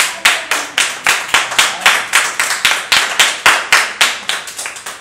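Hands clapping in a steady rhythm, about four claps a second, a little softer near the end.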